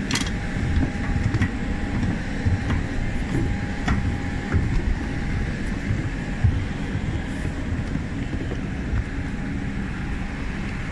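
Steady low rumble inside an Airbus A319 cabin just after landing, with a faint steady whine during the first half and a few light clicks.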